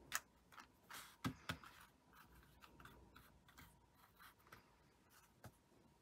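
Hands handling a tatted lace doily and smoothing it flat on a tabletop: scattered light taps and soft rubbing, loudest in the first second and a half.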